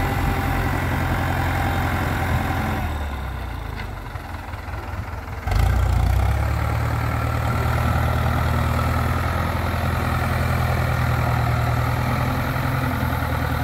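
Farm tractor's diesel engine running while its front loader works. The engine drops lower and quieter about three seconds in, then picks up sharply at about five and a half seconds and runs steadily again.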